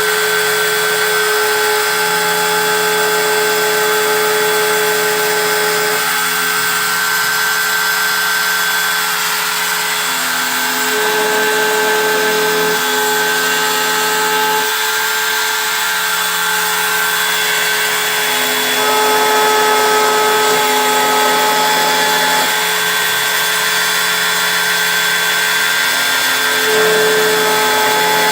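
CNC engraving machine running and cutting, a steady power-tool noise with motor whines that shift pitch in steps every few seconds as the machine's motors change speed.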